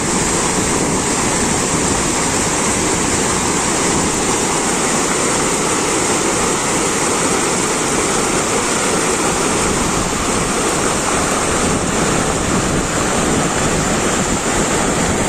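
Muddy floodwater of a rain-swollen stream rushing and churning over a low causeway, a steady loud rushing noise.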